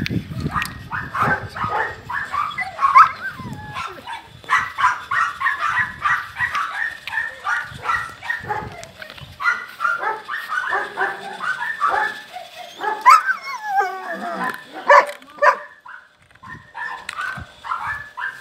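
Several dogs barking over and over, several barks a second, with a few sliding whines mixed in about two-thirds of the way through.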